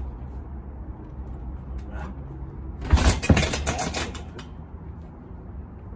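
Strikes landing on a hanging heavy punching bag: two heavy thuds close together about three seconds in, followed by about a second of rapid rattling and clicking.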